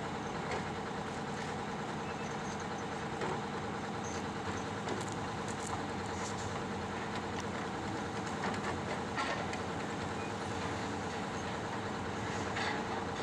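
Heavy diesel machinery running steadily, with a few light clanks and knocks.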